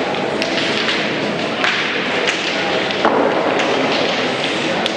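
Petanque boules thudding and clicking several times at irregular moments, over a steady murmur of crowd voices.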